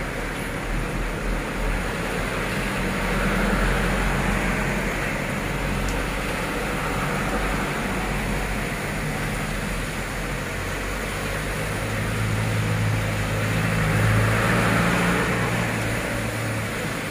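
Heavy rain pouring onto flooded pavement and puddles, a steady hiss, with vehicles passing on the wet road; their engine rumble swells about four seconds in and again near the end.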